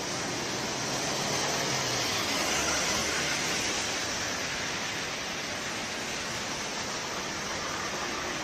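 Heavy rain falling steadily in a downpour, an even hiss that swells slightly about two to three seconds in.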